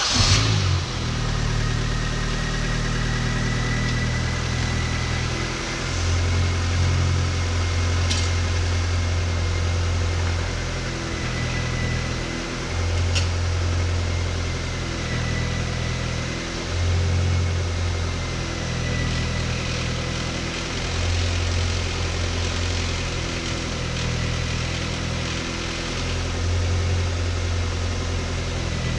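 R50 Mini Cooper's engine idling steadily, with a low hum that swells and fades every few seconds and a thin steady whine above it.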